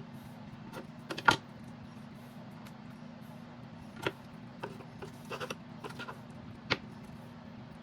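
Scattered, irregular clinks and knocks of kitchen utensils and cookware being handled during food preparation, over a steady low hum.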